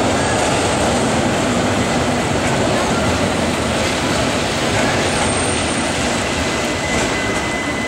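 A Sirietto tram approaching along its rails, heard within a steady rush of noise from a rain-wet street. A faint steady whine comes in near the end as it draws closer.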